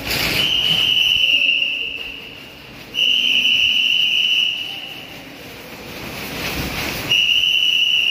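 A whistle blown in three long, steady, high blasts, each about a second and a half. A rushing noise builds just before the last blast.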